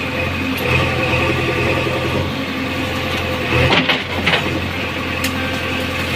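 Diesel engine of a JCB 3DX backhoe loader running steadily under work, with a few sharp knocks a little past the middle.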